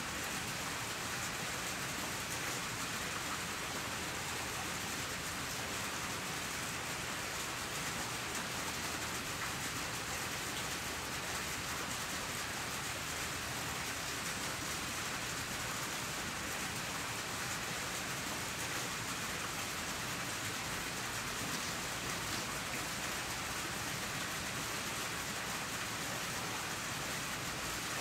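Steady, even background hiss with no distinct events, like rain or running water.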